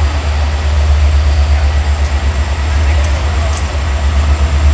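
Steady low rumble of diesel trains at a station platform, as a diesel locomotive-hauled train approaches and a diesel railcar stands nearby, with faint voices in the background.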